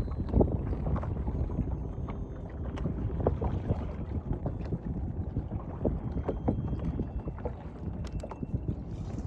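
Wind buffeting the microphone, a steady low rumble, with scattered light clicks and knocks throughout.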